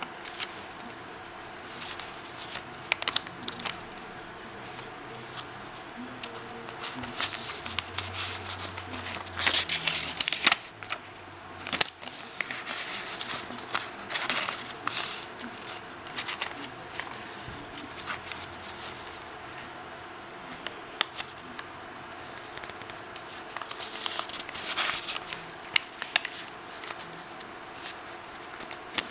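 Crisp paper pages of a handmade journal being turned and handled: irregular rustling, crinkling and soft flicks of paper, with louder flurries about ten seconds in and again later on.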